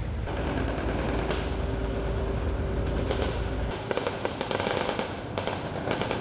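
Crackling gunfire over a low rumble. The rumble drops away about four seconds in, leaving a run of sharp, irregular cracks.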